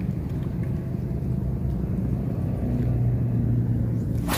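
A motor hums steadily at a low pitch, swelling a little about three seconds in, with one sharp click near the end.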